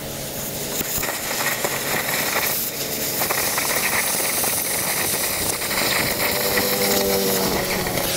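Arc welding on a steel beam: the steady crackling hiss of the welding arc, briefly breaking about two and a half seconds in, with an engine running underneath.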